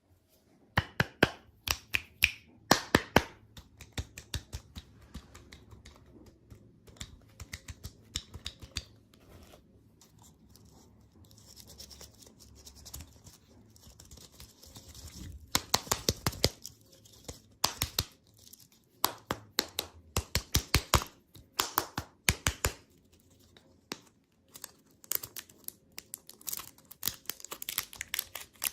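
Close-miked candy wrappers crinkling and tearing, in bursts of quick crackles with short pauses between them.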